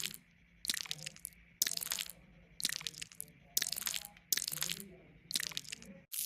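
A run of six short, crisp, crunchy sound-effect bursts, about one a second, each lasting around half a second.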